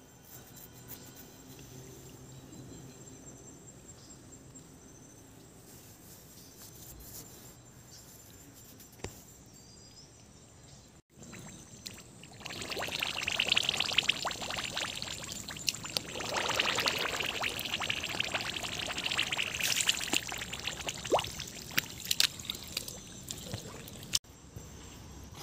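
Feet wading through shallow water over soft mud, the water sloshing and splashing with each step; it starts about halfway through after a faint, quiet stretch.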